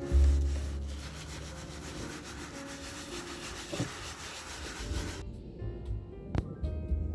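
A steady rubbing noise for about five seconds that stops suddenly, over background music with a low bass line.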